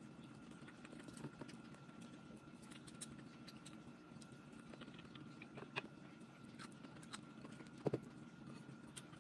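Quiet eating sounds: scattered soft clicks and smacks of food being picked up by hand, dipped and chewed, with a sharper double click about eight seconds in. A faint steady hum runs underneath.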